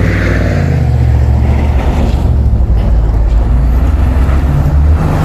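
A vehicle's engine running with a steady low rumble, with wind on the microphone.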